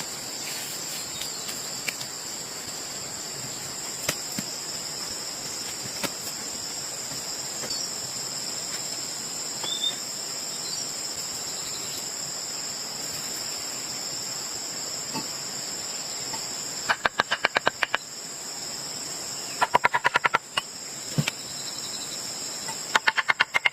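Steady high-pitched drone of insects in tropical forest. About two-thirds of the way in, three short, louder runs of rapid clicking break in, about ten clicks a second.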